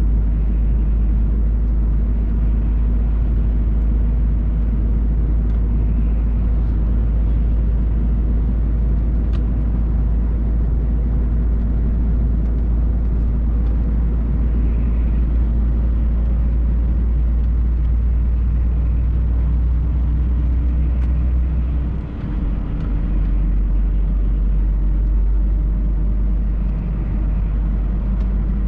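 MAN TGX truck's engine and road noise heard inside the cab while driving: a steady low drone. About three-quarters of the way through, the drone briefly dips and comes back at a changed note.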